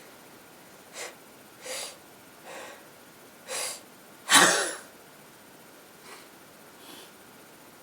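A woman with a cold sneezing: four short breathy sounds, then one loud sneeze about four and a half seconds in, followed by a couple of faint breaths.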